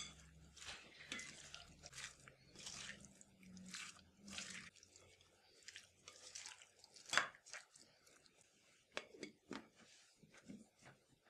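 Wet, squelching sounds of raw chicken pieces, sliced onion and marinade being stirred together in a glass bowl, in short irregular strokes. A few sharper knocks near the end as a plastic lid is pressed onto the container.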